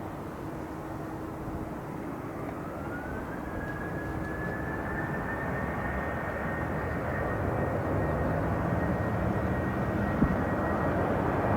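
Jet airliner's engines growing steadily louder, with a thin whine that rises in pitch a few seconds in and then holds steady; a single sharp click near the end.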